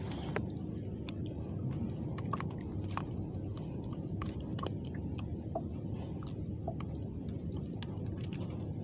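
Scattered small clicks and knocks, irregular and close together, over a steady low rumble.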